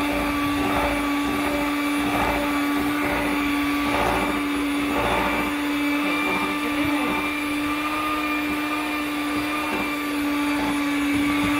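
White electric hand mixer running at a steady speed, its beaters turning in brownie batter in a glass bowl, giving an even motor hum.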